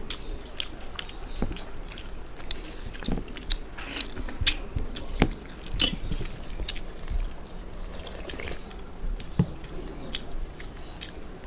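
Close-up eating sounds: rice and fish curry being chewed, with many short wet clicks and smacks scattered throughout, two louder ones about four and a half and six seconds in.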